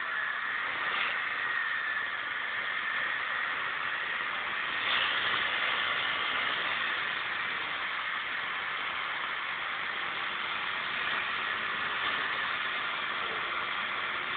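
Motorbike engine running steadily while its rear tyre spins in a burnout, a constant rushing noise with a faint whine.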